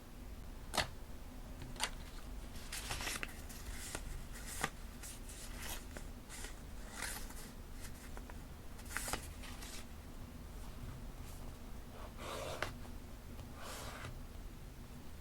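Paper and stationery being handled for journal decorating: scattered short rustles and crinkles with a few sharp taps or clicks.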